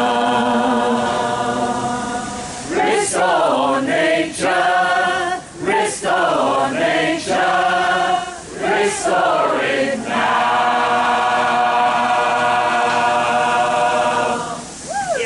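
Choir singing: a held chord, then a few quicker sung phrases, then a long held chord that dies away near the end.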